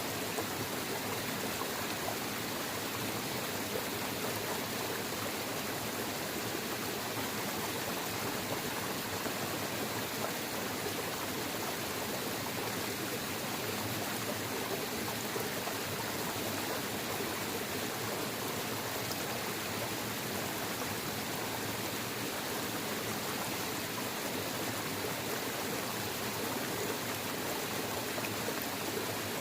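Waterfall and rushing stream water, a steady, even rush with no breaks or changes.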